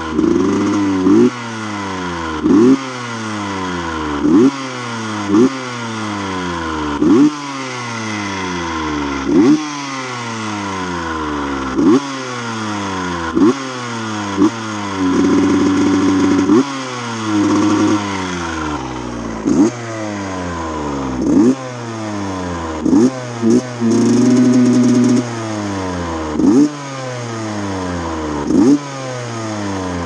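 KTM two-stroke dirt bike engine revved in short throttle blips while standing, each one rising sharply and falling back, about every one and a half to two seconds, with two longer holds at high revs partway through. The carburettor has just been fitted with new jets, and the engine now revs up better.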